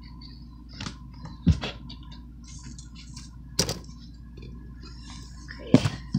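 A handful of short knocks and clunks of objects being handled and set down on a tabletop, spread over a few seconds, with a faint steady hum underneath.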